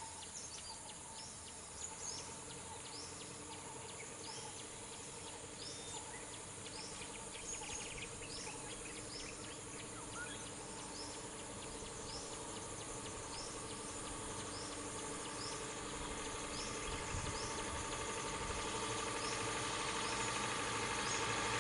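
Outdoor wildlife ambience: a short, high, falling chirp repeats a little more than once a second over a steady insect-like hiss. A minibus engine grows louder over the last few seconds as the vehicle draws near.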